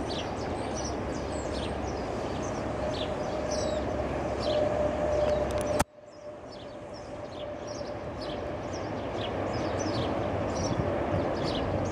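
Flying fox trolley running along its steel cable: a steady rumbling whir with a faint held tone that builds, cuts off suddenly about six seconds in, then builds again. Small birds chirp throughout.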